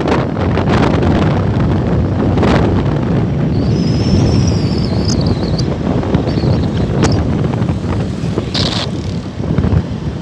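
Wind rushing over the microphone and road noise from a car driving at speed, a steady low rumble.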